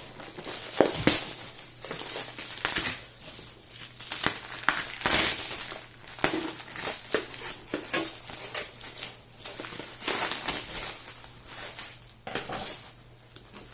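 Packing material crinkling and rustling as parts are unwrapped by hand, with irregular sharp knocks from the pieces being handled; it dies down near the end.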